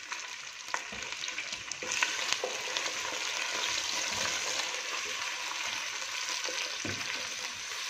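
Chicken pieces, fried onions and ginger-garlic paste sizzling in hot oil in a non-stick pot, stirred and scraped with a spatula. The sizzle grows louder about two seconds in, when the stirring starts, with small clicks of the spatula against the pot.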